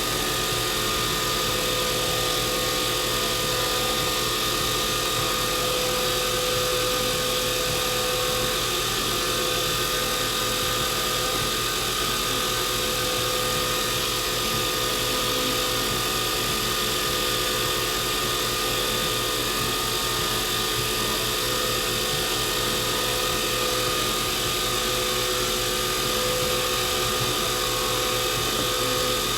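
Wood lathe running steadily at constant speed, a steady motor hum and whine with no change throughout.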